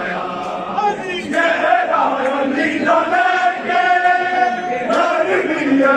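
Crowd of men chanting and shouting together, with one long held call about three and a half seconds in.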